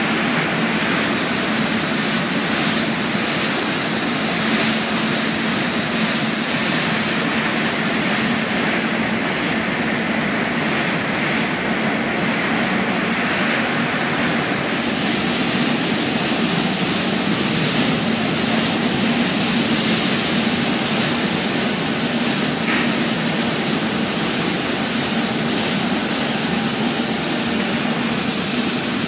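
Max Mols, a catamaran fast ferry, pulling away from its berth: a steady engine drone under loud rushing, churning water from its waterjet wash.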